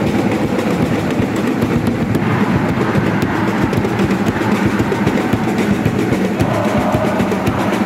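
Large crowd of school basketball supporters singing a team chant together, loud and continuous.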